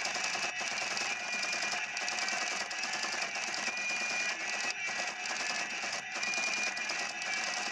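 Hot Wheels Street Creeper toy car's built-in sound chip playing electronic sound effects through its small speaker: a loud, continuous buzzing sound with a few brief dips.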